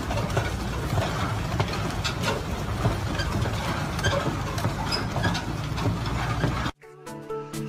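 Semi-trailer running with a wheel shredded down to its bare steel rim, metal clattering on the road over heavy truck noise, with many sharp irregular knocks. It cuts off abruptly near the end and music begins.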